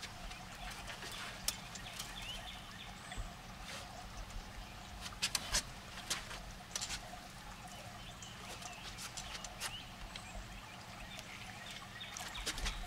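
Quiet sounds aboard a fishing boat: a steady low hum with scattered light clicks and knocks, a few of them grouped close together.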